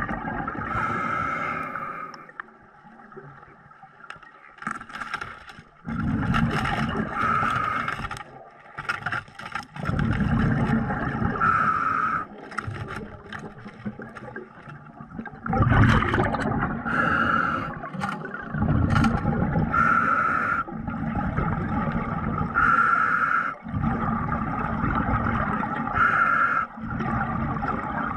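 A diver breathing underwater in an irregular rhythm: gurgling rushes of exhaled bubbles alternate with short hissing breaths every few seconds. It is quieter for a few seconds near the start.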